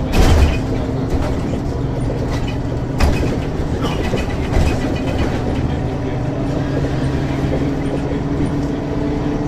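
Diesel engine of a 1994 Ikarus 435 articulated bus with a ZF gearbox running at a steady pitch while under way. A few knocks or rattles from the bus sound near the start, at about three seconds and again a second and a half later.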